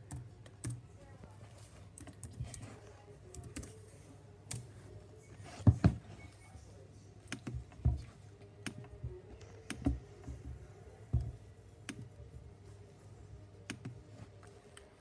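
Typing on a computer keyboard: irregular key taps and clicks, with a louder cluster of knocks about six seconds in.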